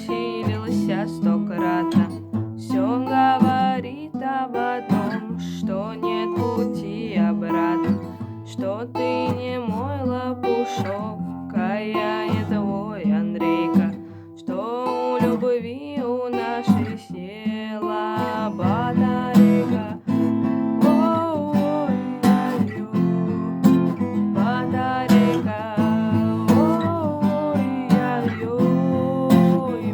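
Acoustic guitar strummed in a steady rhythm, with a voice singing along over the chords.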